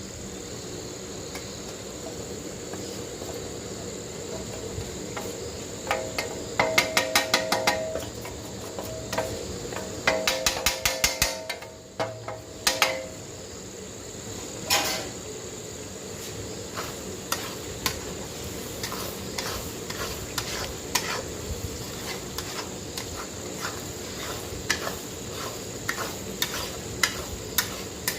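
Chicken cooking in a metal pan, with a metal spoon stirring and scraping over a steady high hiss of frying. About six seconds in and again about ten seconds in comes a quick run of ringing metal clanks, spoon against pan, several a second.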